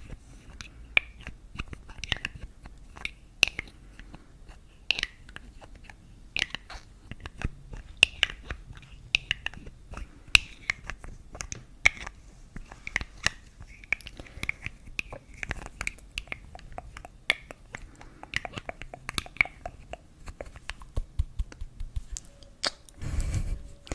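Close-miked mouth sounds: a steady stream of irregular wet clicks and smacks, with a short louder rustle near the end.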